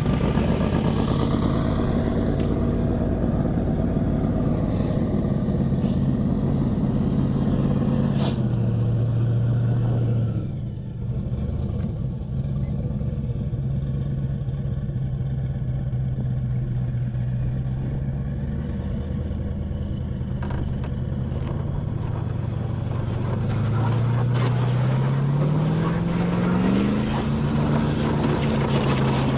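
Airboat engine and propeller running loud and steady, easing off briefly about ten seconds in, then revving up with a rising pitch near the end.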